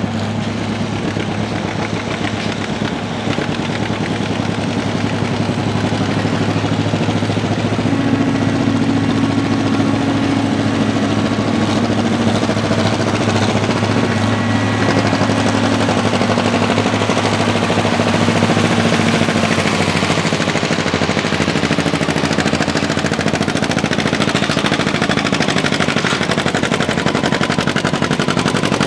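John Deere G's two-cylinder engine running under throttle, its exhaust a rapid string of pops, growing louder a few seconds in.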